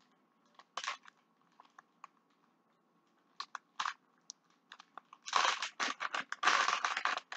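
Plastic cheese package being handled and pulled open, crinkling. A few sparse crackles come first, then a louder, dense run of crinkling starts about five seconds in.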